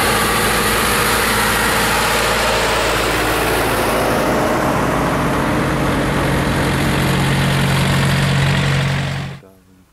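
Vintage tractor engines running steadily as a column of tractors drives past, with a deep steady engine note growing louder in the second half as one passes close. The sound cuts off abruptly near the end.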